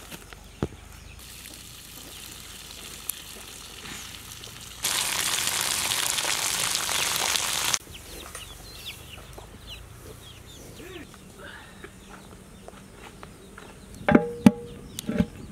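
Chickens clucking with short high calls, and near the end a few sharp metallic knocks with a brief ring as a large cooking pot is handled. In the middle a loud hiss lasts about three seconds, starting and stopping abruptly.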